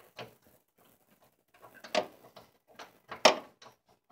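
A hand socket ratchet clicking in short, scattered spells while backing out rear shock mount bolts loosened with penetrating oil, with a sharp metal clack a little after three seconds in.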